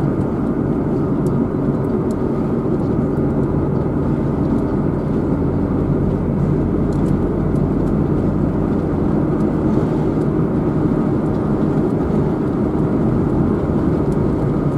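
Steady road and engine noise of a car driving, heard from inside the cabin, a constant rumble with no change in speed.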